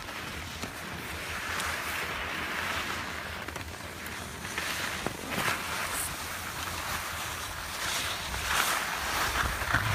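Skis sliding over packed snow, a steady hiss with a few brief scrapes, while wind rushes over the microphone of the person filming as they ski downhill.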